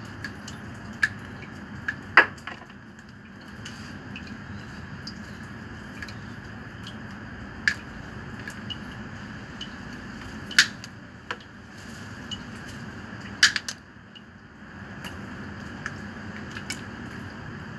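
Pliers snipping and working electrical wire ends: scattered sharp metallic clicks and snips, a few louder snaps among them, over a steady background noise.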